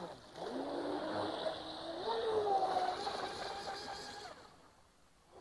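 Joysway Mad Flow F1 V3 RC speedboat's brushless electric motor whining as it runs across the water. The pitch steps up about two seconds in as the throttle is opened, then the sound dies away about four seconds in.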